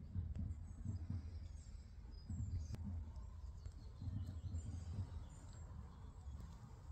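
Outdoor ambience: small birds chirping faintly and intermittently over a low, uneven rumble on the microphone.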